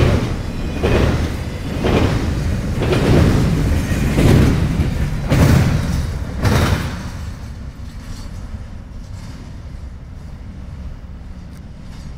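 Wheels of a CSX intermodal freight train banging over a railroad diamond crossing, about one loud strike a second. The bangs stop about seven seconds in as the last cars clear, leaving a low rumble.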